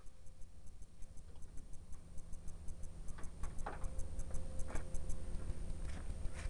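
Ratchet wrench clicking in a fast, even run, about five clicks a second, while nuts are tightened, with a few metallic knocks of tools in the second half.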